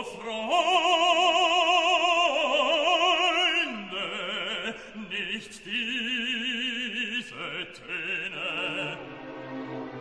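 Operatic classical music: a singer holding long notes with wide vibrato over an orchestral accompaniment.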